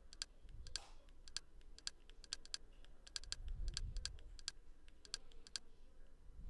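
Quick clicking of navigation buttons pressed over and over, about two presses a second, each press a short double click, while a menu list is scrolled.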